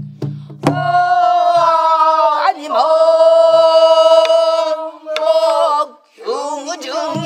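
A group of voices singing pansori in unison: one long held note that wavers and bends down briefly midway, then a new phrase near the end. Sparse strokes on a buk barrel drum keep the rhythm, the loudest about a second in.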